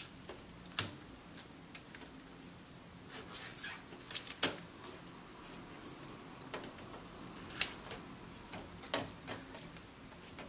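Scattered light clicks and taps of small hand tools and gloved fingers handling a PS4 Slim motherboard on the bench, irregular, with the sharpest click about halfway through and a few more near the end.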